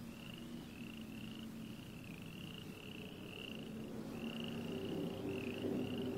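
A car approaching along a dirt road: its engine is a low hum that grows steadily louder. Over it runs a high, even chirping, about two to three chirps a second.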